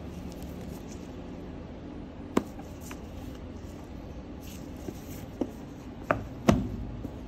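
A cardboard phone box being handled in gloved hands: rubbing and light tapping on the cardboard, with a few sharp knocks, the loudest near the end.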